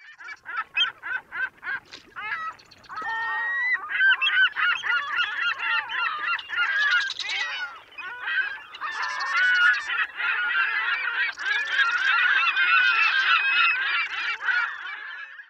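A flock of birds calling. It opens with separate calls at about three or four a second, then turns into a dense chorus of many overlapping calls that cuts off suddenly at the end.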